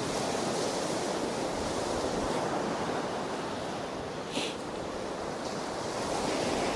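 Ocean surf breaking on the beach: a steady wash of waves that swells and eases.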